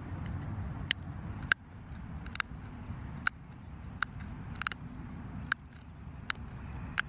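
Sharp snaps of small obsidian flakes breaking off the axe head's tip as a deer antler tip is pressed against the edge (pressure flaking). There are about nine snaps, roughly one every 0.7 seconds, over a low steady rumble.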